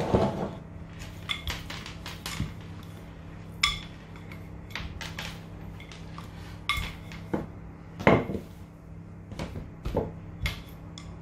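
Wooden rolling pin rolling out dough on a wooden worktop, with irregular knocks and clicks as the pin is pressed, rolled and set down; the loudest knocks come right at the start and about eight seconds in. A steady low hum runs underneath.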